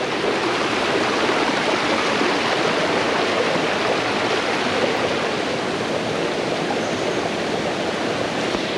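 Fast-flowing creek rushing steadily over rocks at a boulder river crossing: an even, continuous wash of water.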